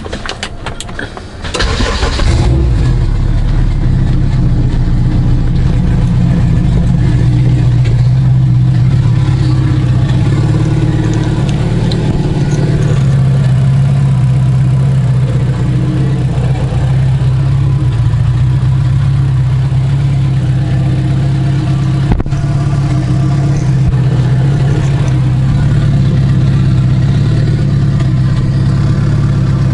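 Honda Accord engine cranking and catching about two seconds in, then idling steadily.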